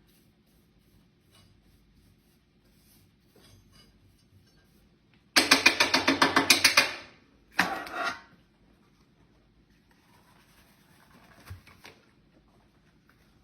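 Loud rapid metallic rattling in a wood-burning stove insert as ash remnants are cleared into its ash drawer: about a dozen clicks a second for a second and a half, then a shorter rattle.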